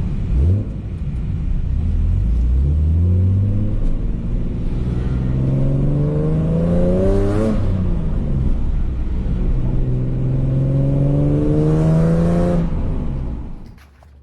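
Lexus SC300's 2JZ-GE inline-six accelerating hard, its pitch climbing through a gear, dropping at a shift about halfway, then climbing again before cutting off near the end.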